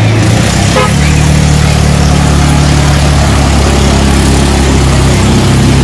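A vehicle engine running loud and close at a steady, even pitch, its low hum holding level throughout.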